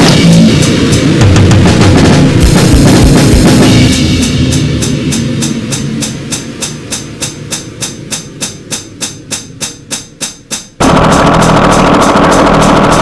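Goregrind noise music: a dense, distorted wall of drums and noise. About four seconds in it thins and fades into a steady pulse of drum hits, about three a second, getting quieter. Just before eleven seconds the full wall of sound cuts back in at once.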